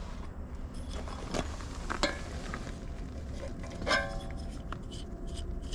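Light metallic clinks and scrapes of a metal exhaust tip being handled and slid onto a compact tractor's exhaust pipe, with one ringing metal clink about four seconds in, over a faint low hum.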